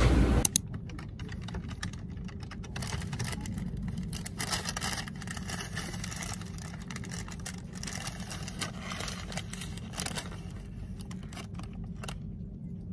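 Paper bag crinkling and rustling in irregular crackles as a toasted sandwich is handled and drawn out of it, over a steady low hum. A louder noise cuts off about half a second in, and the crinkling stops near the end.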